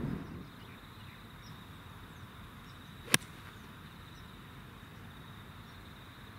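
Golf iron striking a ball off the tee: one sharp, crisp click about three seconds in, over a quiet outdoor background.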